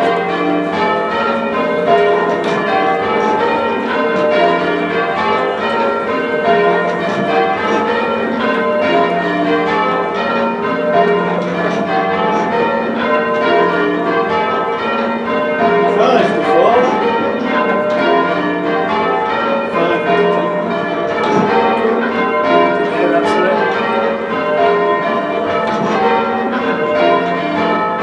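A ring of six big, heavy church bells being rung full circle in change ringing: a continuous, even stream of overlapping bell strikes with long ringing tones.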